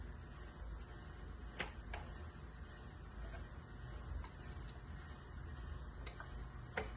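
Scattered light clicks and taps, about six in all, from small RC truck parts being handled and fitted, over a steady low hum.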